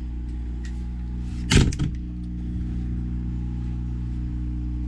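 Steady low mechanical hum, with one sharp knock about a second and a half in.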